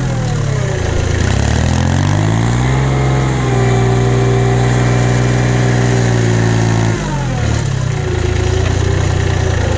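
Tractor engine working a front snow blade: the revs dip, climb to a steady high speed for a few seconds, then drop back to a lower steady speed about seven seconds in.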